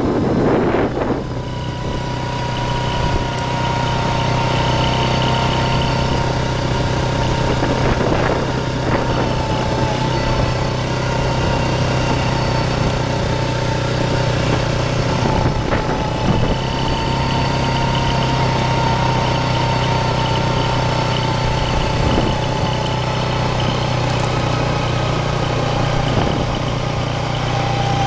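A vehicle's engine running at a steady speed while driving, with a steady whine that wavers slightly in pitch over a low hum.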